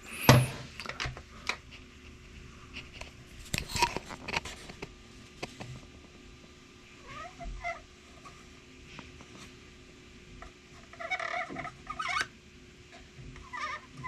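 A few short pitched cries that rise and fall, one about halfway through and two near the end, with a couple of sharp knocks, one just after the start and one about four seconds in.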